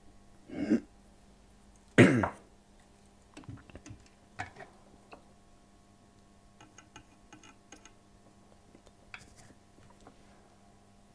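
A person clears their throat about half a second in and coughs once about two seconds in. A few faint, light ticks and taps follow.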